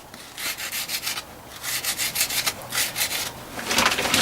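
Hand-scraping strokes on a Colchester lathe as caked sawdust and oil gunk is worked off it. Quick rasping strokes come several a second with a short pause partway through, then turn louder and more continuous near the end.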